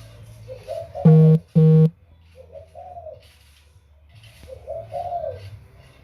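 A dove cooing in repeated low phrases. About a second in come two loud, flat, buzzing tones, each about a third of a second long.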